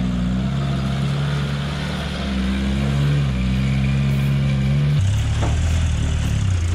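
Suzuki Sierra 4WD's engine revving as it drives through thick, clay-like mud, its pitch rising and falling. About five seconds in the sound cuts to a lower, deeper engine note from a Toyota pickup driving through the same mud.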